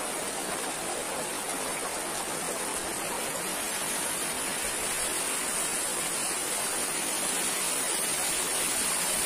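Lake water pouring and splashing over the edge of a shallow submerged rock crossing: a steady rushing of water that grows slightly louder toward the end.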